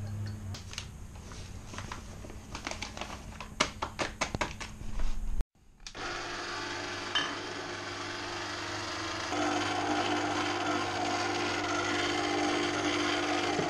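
Light clicks and knocks of a spoon and steel mixing bowl, then an electric stand mixer's motor running steadily as its dough hook works flour into water for pizza dough; about three seconds after it starts, the motor gets louder and its hum changes tone.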